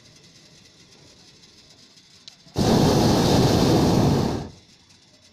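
Hot air balloon's propane burner firing in one blast of about two seconds, starting and stopping abruptly a little past halfway in.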